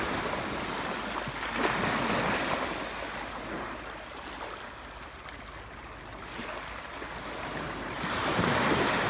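Sea waves surging in: a swell of surf about one and a half seconds in that fades to a quieter lull, then another wave washing in near the end.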